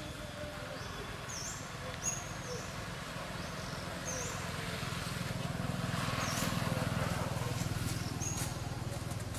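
Outdoor ambience: a low steady hum that grows louder about halfway through and eases off near the end, with about half a dozen short high-pitched chirps scattered through it.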